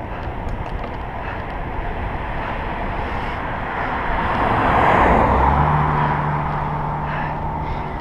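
A car overtakes the bicycle: a rush of tyre and engine noise swells, peaks about five seconds in and then fades, leaving a steady low engine hum. Wind and road noise run underneath.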